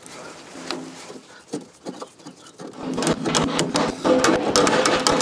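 Fast, light hammer taps on the steel edge of a tractor's rear fender, with the sheet-metal panel ringing under the blows. The tapping starts about three seconds in, after a few quieter tool clicks.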